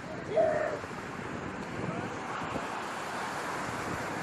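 Wind buffeting the microphone over steady surf noise on the beach, with a short, loud pitched cry about half a second in.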